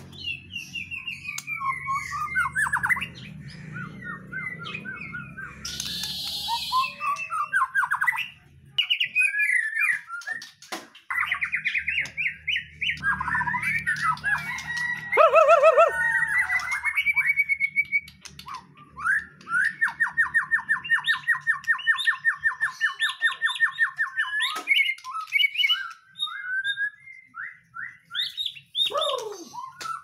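Caged songbird singing a loud, varied song of quick whistled phrases and harsh chatter, with a long run of rapid repeated notes about two-thirds of the way through.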